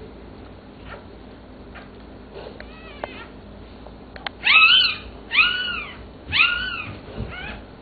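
Newborn puppy crying: a run of four high-pitched squeals about a second apart, each rising then falling in pitch, starting about halfway through, with fainter squeaks before them.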